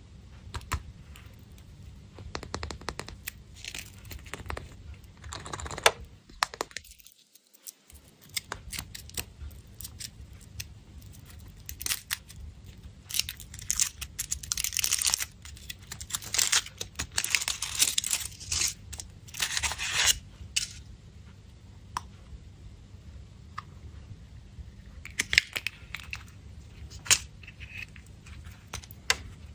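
Foil wrappers on Kinder Surprise chocolate eggs being torn open and crinkled, with scattered sharp clicks and taps. There is a brief break in the sound a few seconds in.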